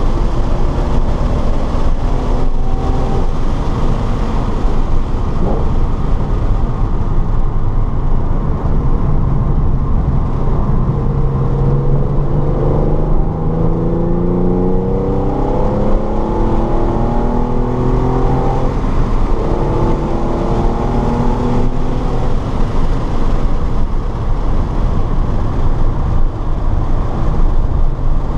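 Race car at track speed: steady loud engine, road and wind noise, with the engine note rising under acceleration about a third of the way in and again past the middle.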